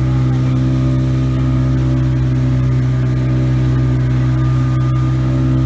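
Motorboat engine running at steady revs while the boat speeds along, with the rush of water and spray along the hull.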